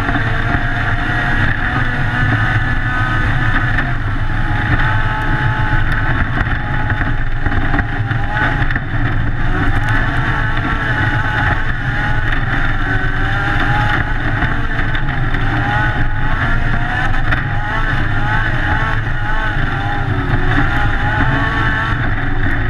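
Toyota MR2 autocross car's engine running hard at racing speed, its pitch repeatedly rising and dropping as it accelerates and eases off, over a steady rush of wind and tyre noise.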